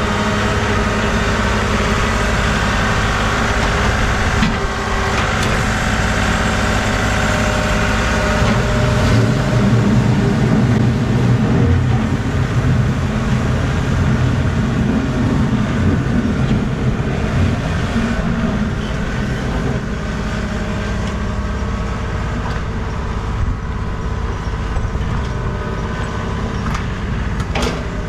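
Tractor engine running steadily while plowing snow, working a little harder for a stretch in the middle.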